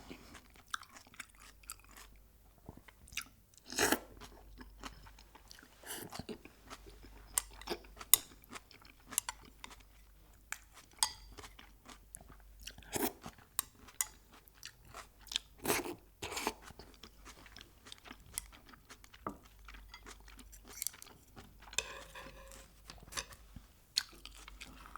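Crispy fried chicken being chewed, with irregular loud crunches of the coating between softer chewing.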